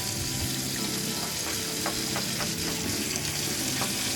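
Steady hiss of running water as road-bike disc brake pads are washed with crystal bar soap, with a few faint clicks of handling.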